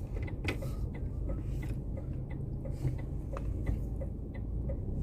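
Car's turn-signal indicator ticking about twice a second, heard inside the cabin over a steady low engine and road rumble.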